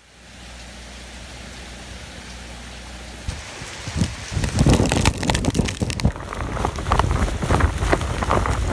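Hurricane Maria's rain falling steadily. A little over three seconds in it gets louder and gustier: heavy rain with strong wind gusts buffeting the microphone.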